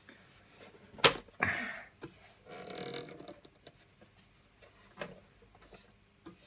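The case cover of a QNAP TS-253 Pro NAS being worked loose and slid backwards, a stiff fit: a sharp click about a second in, followed by scraping, a second stretch of scraping around three seconds in, and a smaller click about five seconds in.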